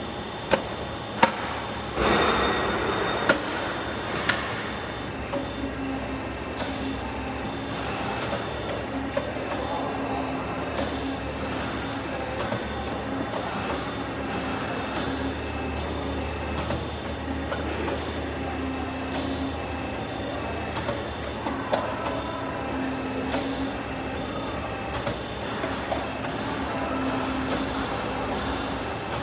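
Downspout elbow forming machinery running: a steady mechanical hum with short bursts of air hiss every few seconds, and a few sharp metallic knocks near the start.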